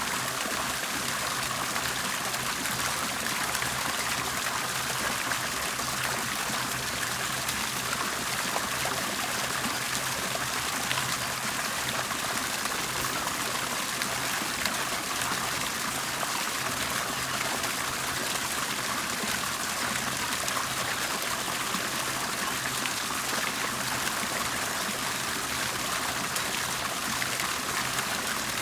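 Water bubbling and trickling steadily, a continuous gurgle and splash with no pauses.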